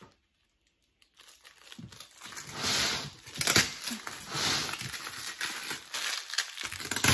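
Packing tape being peeled off a plastic storage tote's lid and crumpled into a ball in the hands: crinkling and tearing that starts about a second in and keeps going.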